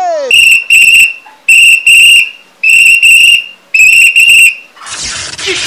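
A whistle blown loudly in four pairs of short, shrill blasts, about one pair a second. A noisy rush follows near the end.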